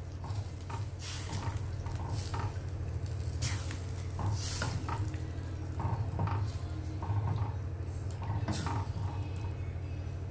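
Pot of fish curry simmering on the stove, coming up to the boil, with a spoon now and then clinking and scraping against the pot. A steady low hum runs underneath.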